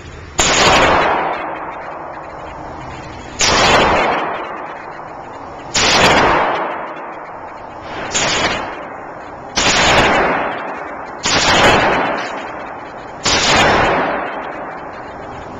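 Seven single handgun shots fired at a slow, uneven pace, each a loud crack followed by a long echo off the walls of an indoor shooting range.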